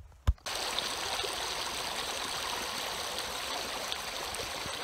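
Shallow stream running over rocks: a steady rush of water that starts abruptly about half a second in, just after a single brief knock.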